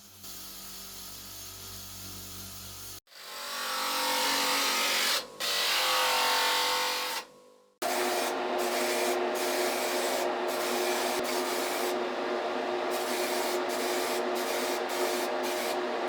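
Electric power tool abrading a surface in three separate bursts with hard cuts between them: a quieter steady run, then a louder rough grind, then a long steady grind with a constant motor tone.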